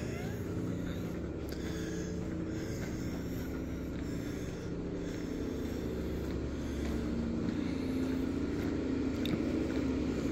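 Steady low mechanical hum with several held tones.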